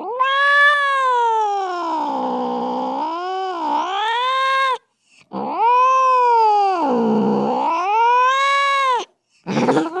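Angry domestic cat yowling: two long, drawn-out caterwauls that dip and rise in pitch, the second starting about halfway in, then a brief cry near the end.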